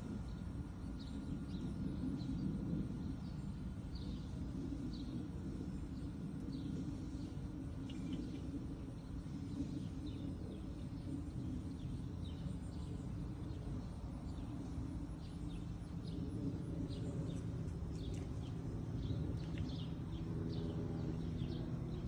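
Small birds chirping again and again over a steady low outdoor rumble. A faint steady hum comes in near the end.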